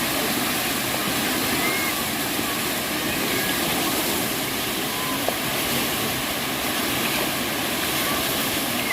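Steady rush of falling water from a waterfall, with a few faint short chirps over it and a single click about five seconds in.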